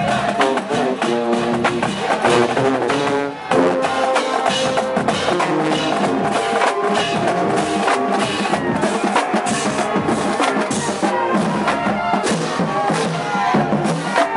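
Marching band playing a brass tune over a steady drum beat, with trumpets and sousaphones, breaking off briefly about three and a half seconds in before going on.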